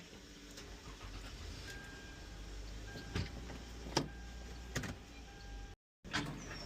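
A vehicle's engine running low and steady, with three sharp clicks or knocks a little under a second apart about halfway through. The sound cuts out completely for a moment near the end.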